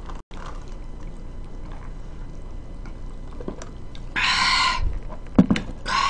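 A slurping sip of iced lemon sparkling water drawn through a straw, heard as one short noisy burst about four seconds in, followed by a couple of light clicks.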